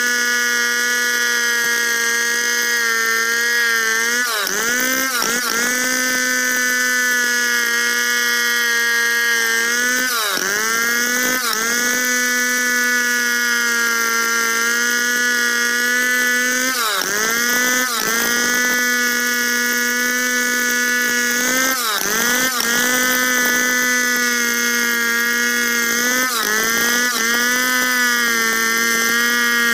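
Stihl 070 two-stroke chainsaw running at high revs, ripping lengthwise through a squared timber block. Its pitch dips briefly and recovers several times as the cut loads the engine.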